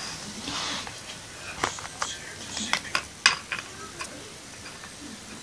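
Small plastic Littlest Pet Shop figurines being handled and set down on carpet, giving a few sharp light clicks and taps spread over a couple of seconds.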